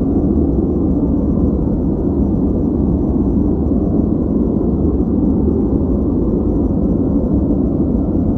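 Steady, unchanging background noise track of the kind sold as white noise, deep and muffled, with its weight in the low end and almost nothing high; it sounds more like a low rumble than a bright hiss.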